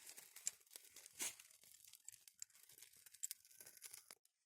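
Faint, irregular dry crackling and crinkling, many small clicks at an uneven pace.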